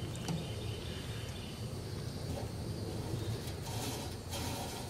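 Steady outdoor background noise with a low hum, a few faint clicks early on, and two brief rustling hisses near the end.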